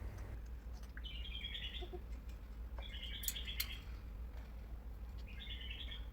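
African grey parrot giving three short chirping calls, each in quick stepped notes. Two sharp clicks come just after the middle call.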